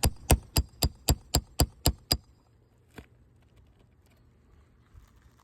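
Roofing hammer tapping a metal nail puller under a shingle to work it onto a roofing nail: a quick run of about nine sharp metallic strikes, about four a second, stopping just after two seconds in, then one softer tap about a second later.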